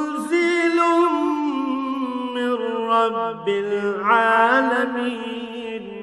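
A male Qari chanting a Quran verse in Arabic in melodic tilawah style, long held notes that waver and glide in pitch.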